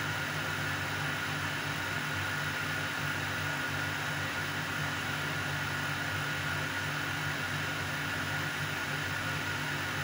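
Steady low hum and hiss, with a thin constant whine above it, unchanging throughout.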